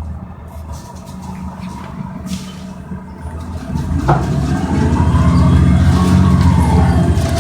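Interior of a NABI Metro 45C transit bus: its Cummins Westport ISL G natural-gas engine and Allison automatic transmission running at low load, then growing much louder about four seconds in as the bus pulls harder, with a whine rising in pitch over the rumble. A short sharp sound comes just as the load builds.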